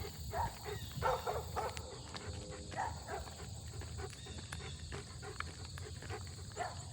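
Dog barking in short, scattered bursts, with a brief pitched call about two seconds in, over a steady low rumble.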